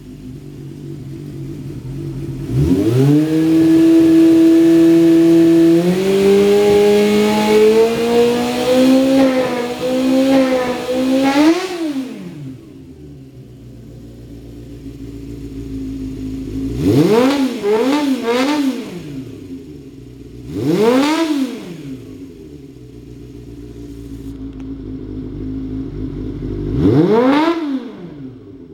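Honda CBR400F's air-cooled inline-four through a Sansei Racing aftermarket exhaust, revved by hand while standing. A long rev holds and climbs in steps for about nine seconds and drops back to idle. Then come a quick burst of three blips, a single blip and, near the end, one more.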